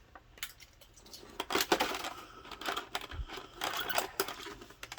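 Action-figure packaging being handled: irregular clicks, taps and short rustles of plastic and twist ties as the figure is freed from its packaging.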